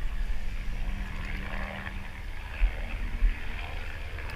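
Deep, steady low rumble with an engine-like hum for about the first half, and two dull thumps near the end.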